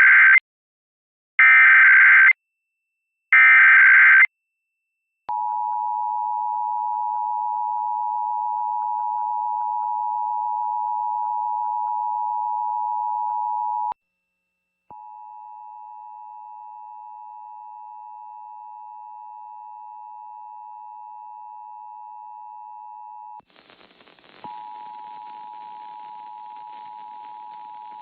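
Emergency Alert System activation: three short bursts of SAME header data tones, then the EAS attention signal, a steady two-pitch tone (853 and 960 Hz). The attention tone breaks off about 14 seconds in, resumes at a lower level a second later, and carries a faint hiss from about 23 seconds in.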